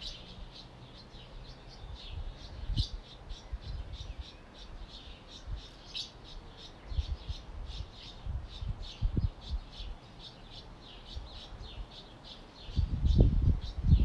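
A chorus of small birds chirping, with many short high chirps overlapping several times a second. A low rumble rises near the end.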